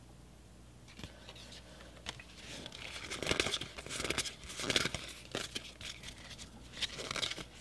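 Foil wrapper of a Pokémon trading-card booster pack crinkling and tearing open after a quiet second or two, then the stiff cards inside being handled and slid through the hands.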